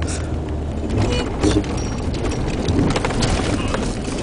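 Inside the cabin of a vehicle driving on a dirt road: a steady low rumble of engine and tyres with frequent clicks, knocks and rattles as it bounces over the rough surface.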